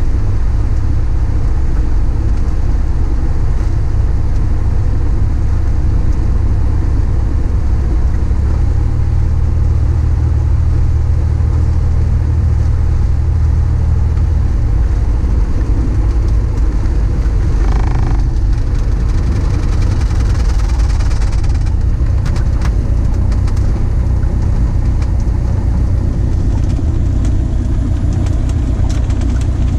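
Light aircraft's piston engine running steadily, heard loud inside the cockpit, its low drone shifting slightly in pitch about a third of the way in.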